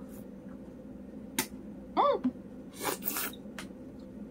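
Sucking hard on a wide boba straw to free a tapioca pearl stuck in it: a sharp click, a short hum in the throat, then a hissing suck of air and tea through the straw.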